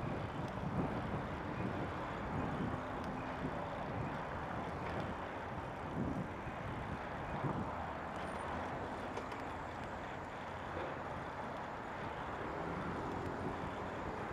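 Heavy road traffic heard from a moving bicycle: a steady rush of car and truck engine and tyre noise, with a couple of vehicles swelling past around the middle.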